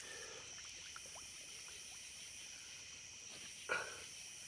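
Night insects chirring steadily in the marsh, with one short, sharp jab about three and a half seconds in as a frog gig is thrust down into the mud and shallow water to spear a frog.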